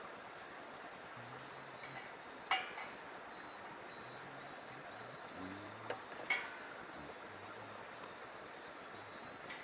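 Metal cookware or utensils clinking at a barbecue grill: two sharp clinks, one about two and a half seconds in and one near the middle, with a smaller tap just before the second, over a steady hiss.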